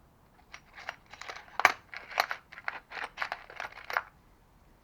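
Small metal cutters and tool scraps clinking and clattering as a hand rummages through a box of scrap cutters, a quick irregular run of clicks that stops near the end.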